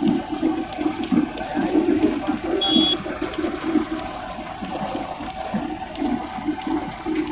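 Belt-driven rag-shredding machine running, tearing old cloth into stuffing and blowing it into a mesh bag: a steady rushing whir with an uneven low churning and a constant hum.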